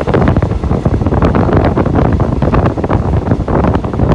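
Passenger train running at speed: a steady low rumble with dense, irregular clatter from the wheels and carriage, with heavy wind noise on the microphone.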